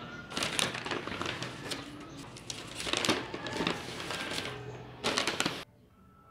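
Brown paper takeout bag rustling and crinkling as it is handled, in quick crackly bursts that cut off suddenly near the end.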